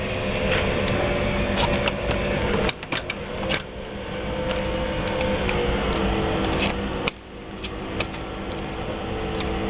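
Pen knife scraping and picking at string wrapped on a rod, with scattered small clicks, over a steady mechanical hum.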